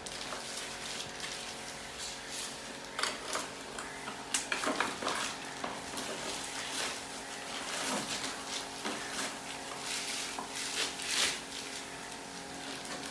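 Scattered light metallic clinks and knocks, like tools and fittings being handled, over a steady machine hum.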